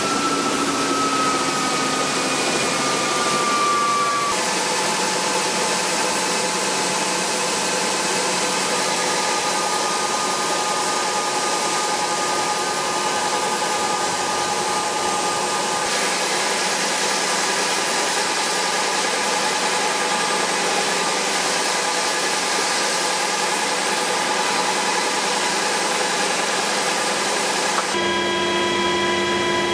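UH-60 Black Hawk helicopter's twin turbine engines and rotor running, heard from inside the cabin: a steady rush of noise with a high turbine whine. The whine falls slightly in pitch over the first few seconds, and the sound changes abruptly about four, sixteen and twenty-eight seconds in.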